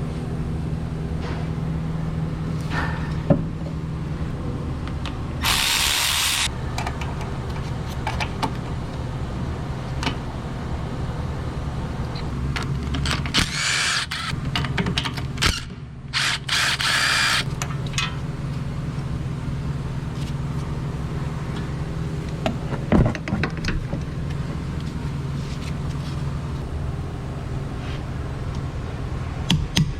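A power tool run in three short bursts over a steady low machine hum, during removal of a CV axle, with a quick run of sharp taps near the end.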